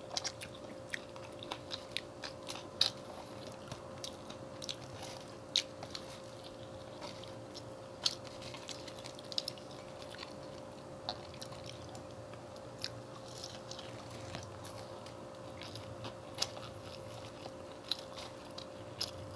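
Close-miked chewing and biting of french fries and fried chicken, with scattered sharp crunches and mouth clicks over a faint steady hum.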